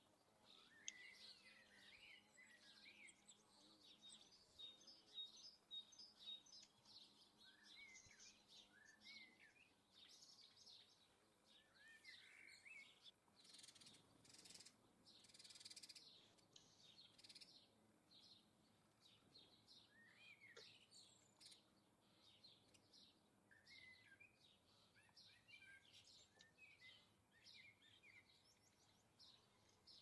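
Faint chirps and song of small garden birds: many short calls, some rising in pitch, scattered throughout. A brief hiss of noise comes about fourteen seconds in.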